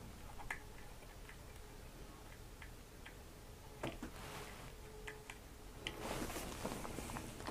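Faint, irregularly spaced small clicks, with a couple of soft short rustles near the middle and toward the end.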